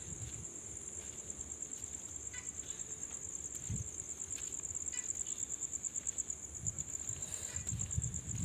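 Crickets chirping in a steady, high-pitched trill with a fast pulse, with faint low rumbles underneath.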